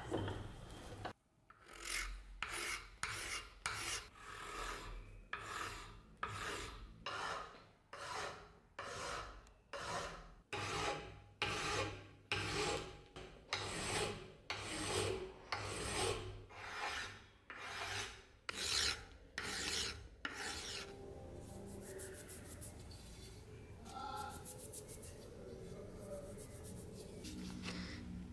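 Hand file rasping in long push strokes across a cast aluminium sword handle clamped in a vise, about one and a half strokes a second, to cut away a casting seam. The strokes stop about twenty seconds in, leaving quieter rubbing.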